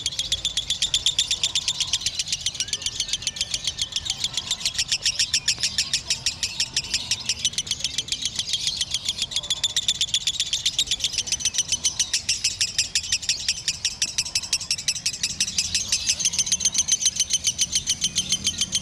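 Lovebird singing its 'konslet' ngekek: one long, unbroken high-pitched chatter of rapid, evenly spaced notes, the non-stop song prized in Indonesian lovebird contests.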